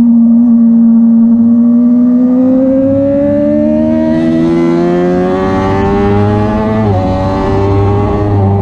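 Suzuki race sportbike's engine at full throttle, heard from on board: its pitch climbs steadily as the bike accelerates, with a quick dip for an upshift about seven seconds in. Wind rush on the microphone grows as speed builds.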